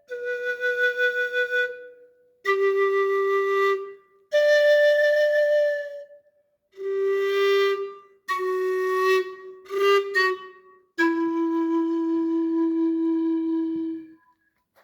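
Sikus, Andean bamboo panpipes, playing a slow melody of breathy held notes with short breaks between them, ending on a long low note that stops about fourteen seconds in.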